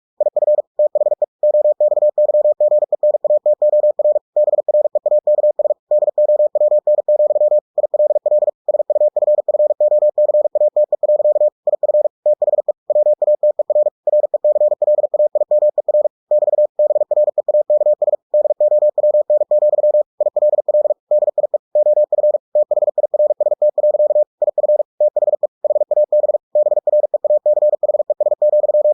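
Computer-generated Morse code (CW) sent at 45 words per minute: a single steady beep tone keyed on and off in very fast dots and dashes, broken by short pauses between words.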